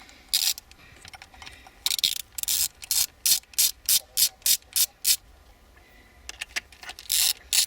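Socket ratchet clicking in quick short strokes as bolts are unscrewed, about three strokes a second. There is a pause of about a second and a half before a few more strokes near the end.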